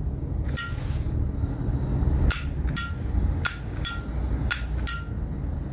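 Zippo lighter lid flipped open and snapped shut, making a series of sharp metallic clicks with a short ring, several in close pairs.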